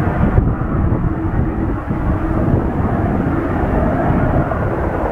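Volcanic crater fountaining and spattering lava: a steady, deep rumble with no breaks.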